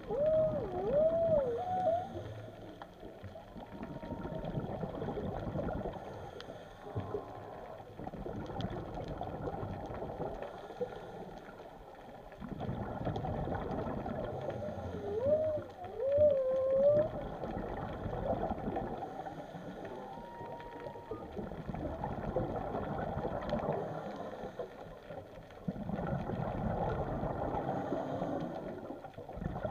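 Whale song heard underwater: wavering, swooping calls near the start and again about fifteen seconds in, with a few shorter higher notes between. Under it comes the repeated hiss and bubbling of a diver's scuba regulator breathing.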